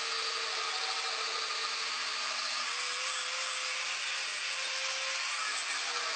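Power grinder running steadily with its abrasive wheel grinding a steel blade: a continuous grinding hiss over a faint motor hum that shifts slightly in pitch about halfway through.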